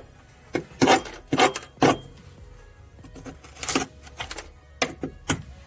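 A hand tool scraping and picking at old bedliner coating on a steel car floor in short, irregular strokes, about a dozen in all. The coating is stuck fast and barely comes up.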